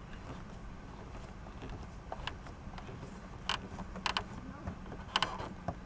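Old hand screwdriver turning a small screw into a doorbell button's mount, giving a few faint, irregular clicks and scrapes over a steady low hum.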